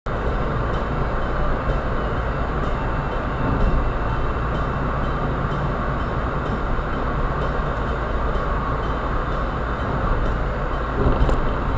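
Steady rumble of a car on the move: tyre and engine noise at an even level with no sudden events.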